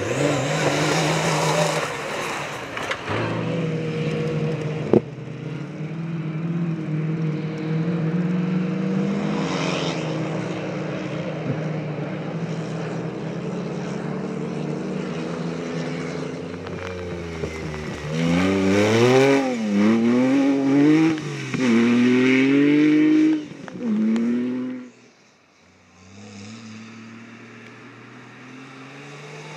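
Off-road rally 4x4 engines driven hard on a dirt stage: a steady engine note for the first half, a sharp knock about five seconds in, then a loud stretch past the middle where the engine is revved up and down several times in quick succession, and a quieter engine after a sudden drop near the end.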